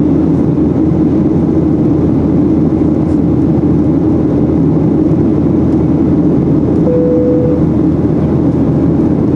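Cabin noise of a Boeing 737-800 in flight, heard from a window seat over the wing: a loud, steady drone of airflow and its CFM56-7B jet engines. A short single tone sounds once, about seven seconds in.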